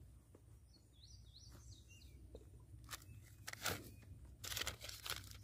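Paper receipt crinkling as it is handled and unfolded, a run of short crackles in the second half. Faint bird chirps about a second in.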